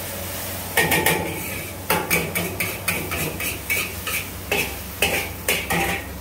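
Metal spatula striking and scraping a steel wok while stir-frying noodles. After a quieter first second comes a run of irregular clangs and scrapes, about two a second, each with a brief metallic ring.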